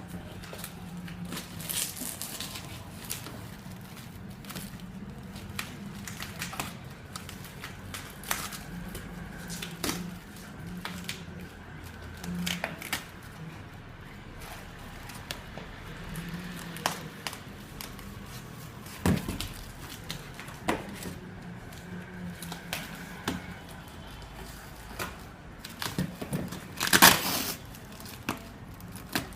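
Packaging being handled in an unboxing: plastic and cardboard crinkling and tearing, with scattered knocks. There is a sharp knock about 19 seconds in and a louder rustling burst about 27 seconds in.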